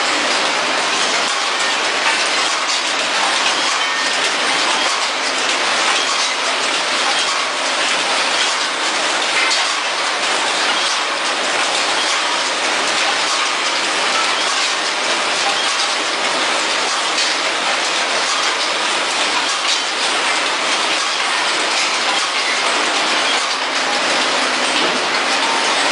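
Several vertical powder packaging machines for baking powder running together on a packing floor: a loud, steady, dense mechanical clatter and hiss that does not let up.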